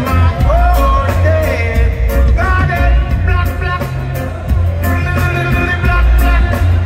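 Live reggae music played loud through the PA: heavy bass and a steady beat, with a voice singing in long gliding notes over it.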